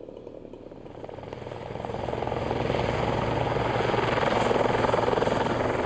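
A helicopter, its rotor beating fast and evenly over a steady low engine hum, getting louder over the first two or three seconds and then holding steady.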